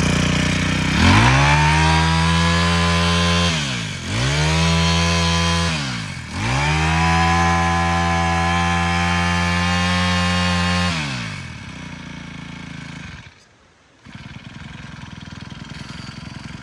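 Honda GX25 25cc four-stroke brush cutter engine revved up to high speed three times, the pitch rising and holding before dropping back each time, the last run held for about four seconds. After about eleven seconds it falls back to a quieter idle.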